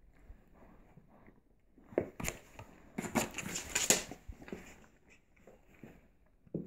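Staffordshire Bull Terrier and snow Bengal kitten play-fighting in a cardboard box: scuffling, scratching and rustling of cardboard and paper. It is soft at first, then a burst of sharp clicks and rustles from about two to four seconds in is the loudest part, with another brief scuffle at the very end.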